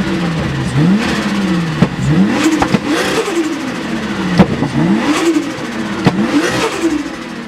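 Turbocharged car engine being revved again and again, the pitch climbing then dropping back about every second and a half, with sharp short bursts as each rev falls away.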